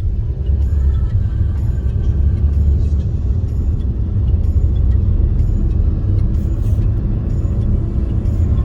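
Steady low rumble of a car being driven, heard from inside the cabin: engine and road noise, with radio music playing faintly underneath.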